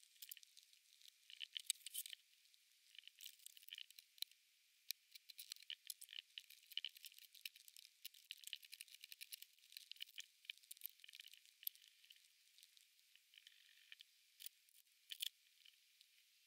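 Sphodromantis aurea praying mantis chewing an adult locust: faint, irregular crunching and clicking of mandibles biting through the locust's hard exoskeleton, thin and high-pitched, with clusters of sharper cracks.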